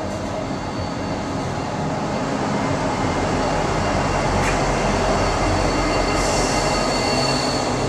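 A pair of Norfolk Southern EMD SD40E diesel locomotives running light past at low speed: a steady deep engine rumble that grows louder over the first few seconds and then holds, with a thin high whine above it.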